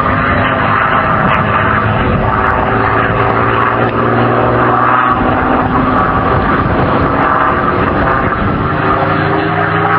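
P-51D Mustang's Packard Merlin V12 engine running loud and steady as the fighter flies its display, its pitch shifting slightly as it passes.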